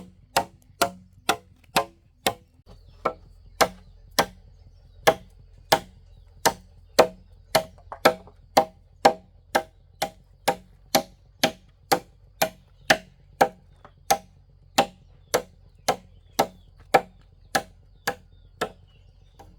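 Steady chopping with a blade, a sharp stroke about twice a second, kept up without a break.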